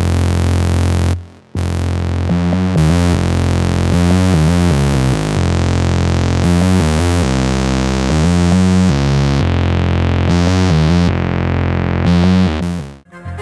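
A UVI SUPER-7 software synth preset, a sampled recreation of the Roland MKS-7, being played: a held bass note under upper synth notes that change every half second or so. It drops out briefly just after a second in and stops just before the end.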